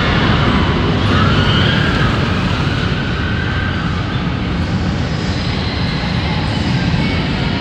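Steady din of an indoor amusement park, a low rumble and hiss from the Chaos spinning-wheel ride running with riders aboard, with faint high tones drifting in and out.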